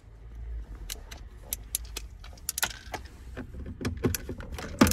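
Hand screwdriver with a Torx 25 bit working screws in a car's dashboard trim: a run of irregular small metallic clicks and taps, with a louder clatter near the end.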